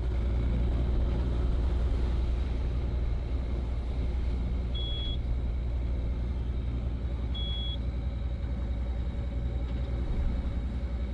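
Sailboat's inboard diesel engine running steadily with a low rumble, and two short high electronic beeps about five and seven and a half seconds in.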